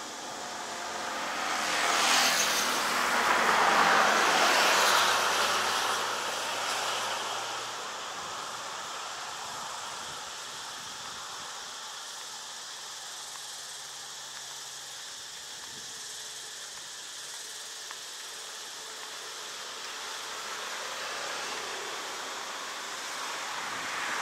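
A road vehicle passing close by, its tyre and engine noise swelling over a couple of seconds and fading away, followed by quieter steady outdoor background noise; a second vehicle approaches near the end.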